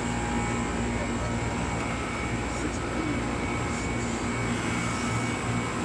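York commercial HVAC unit running, a steady mechanical drone with a constant low hum from its compressor and fans.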